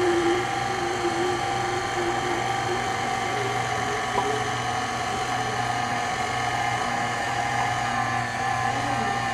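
KitchenAid Artisan stand mixer's motor running at a steady speed, a whirring hum, as its flat beater works masa dough in the stainless steel bowl while broth is added.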